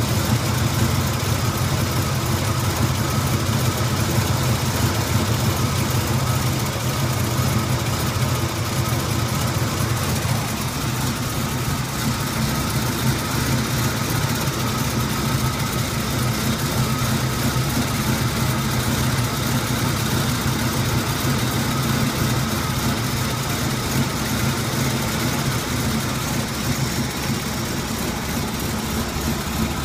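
1981 Turbo Trans Am's turbocharged 301 V8 idling rough just after a cold start, the engine shaking and running unevenly. The low rumble eases slightly about ten seconds in, then holds steady.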